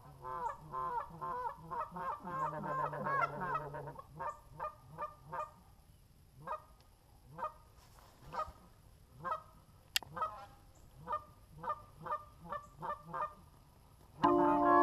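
Geese honking: a dense run of overlapping honks and clucks for the first four seconds, then single honks every half second to a second, thinning out. Music comes in just before the end.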